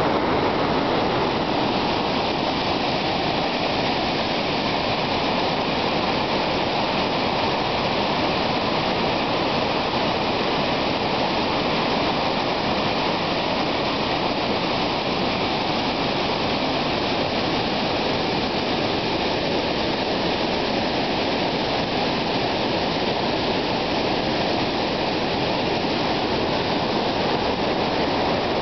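Waterfall in flood, swollen by thunderstorm runoff: a steady, unbroken rush of churning white water.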